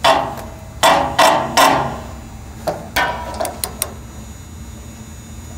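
Sharp metal-on-metal bangs, each ringing briefly: about five in the first three seconds, then a few lighter clicks. They come from a wrench, extension and cutaway socket being forced against a seized NOx sensor threaded into a diesel exhaust aftertreatment box.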